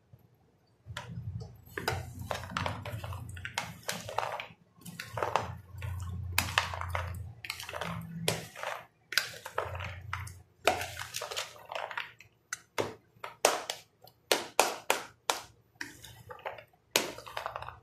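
A hand mixing boiled black chickpeas, potato and onion, wet with lemon juice, in a plastic bowl: irregular squelches and rustling, starting about a second in, with many sharp clicks and clinks from the bowl and the glass bangles on the wrist.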